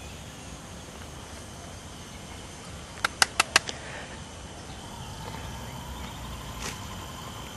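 Four sharp, loud clicks in quick succession about three seconds in, over faint steady outdoor background noise.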